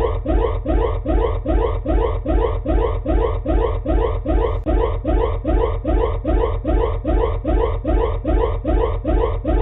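Emergency alert alarm tone: a short rising sweep repeated about three times a second, over a steady low hum.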